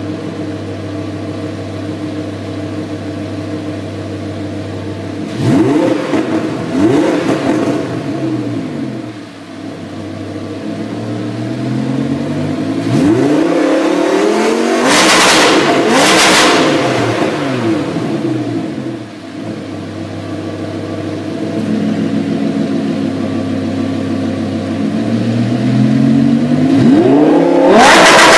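Lamborghini Huracán LP610-4's V10 running through a catless Fi Exhaust valvetronic system with quad tips. It idles steadily with the exhaust valves closed, then is revved in sharp blips that rise and fall, about five seconds in and again from about twelve to seventeen seconds. Near the end, with the valves open, it revs again, the loudest part.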